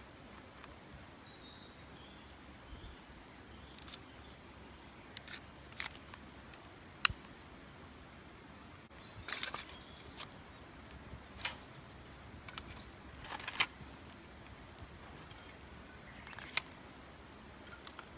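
Scattered sharp clicks and knocks, one every second or two, over a faint steady hiss, with two louder knocks about a third and three-quarters of the way through.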